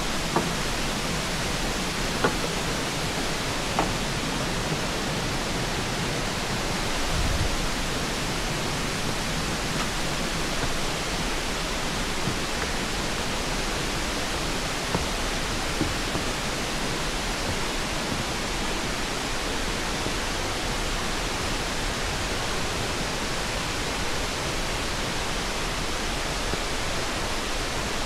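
Steady rushing of a mountain creek's cascades and waterfall, an even hiss of water that neither rises nor falls. A few faint knocks sound over it.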